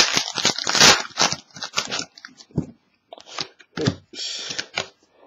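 Trading cards being handled and slid against one another: a dense run of scraping and crackling for about two seconds, then a few scattered clicks and a short rustle.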